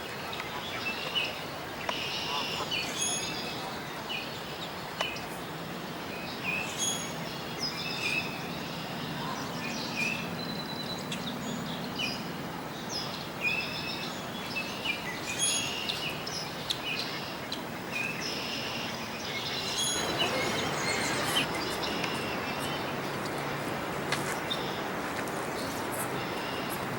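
Birds chirping in short, scattered calls over a steady background rush of noise, which grows louder about twenty seconds in.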